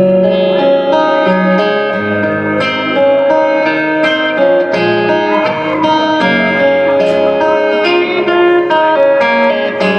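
Guitar playing an instrumental passage of plucked notes that ring on, a melodic line over lower notes, with no singing.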